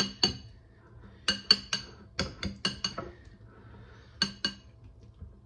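A spoon clinking against a small glass bowl while stirring diced fish: about a dozen short, ringing taps in irregular clusters of two to four.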